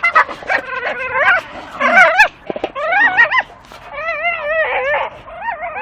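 Staffordshire bull terrier whining and squealing in a run of high, wavering cries, each under a second, as it hangs on and chews a metal dustbin lid swinging from a tree. Sharp clicks sound between the cries.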